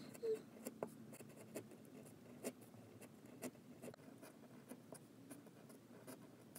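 Faint scratching of a Nikko G steel pointed nib, fitted in a Jinhao fountain pen, drawn across paper in script strokes, with irregular small ticks as the point lifts and lands.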